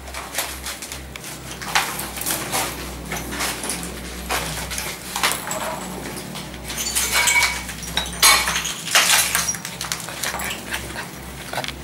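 Irregular clinks and crunches, like footsteps on broken tile and rubble, over a low steady hum.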